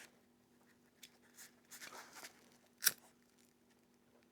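Faint rustling of nylon backpack webbing being handled, with one sharp click just before three seconds in, over a faint steady hum.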